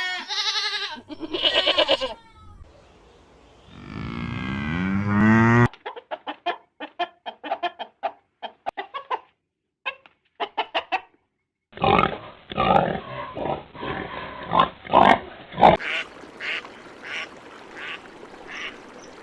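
Several farm-bird call recordings cut together: geese and ducks honking and quacking, including a fast run of short calls in the middle. The clips change abruptly about a third of the way in and again past the middle.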